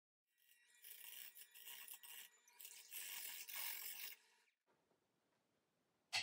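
Electric hand mixer beating eggs and cream in a ceramic bowl, its motor running under the rattle and scrape of the beaters against the bowl. It stops about four and a half seconds in, and a single sharp knock comes at the very end.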